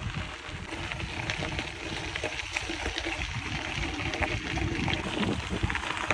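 Mountain bike rolling over a dirt and gravel trail: tyre noise and the bike rattling as many small scattered clicks over a rough, steady rumble of wind on the microphone.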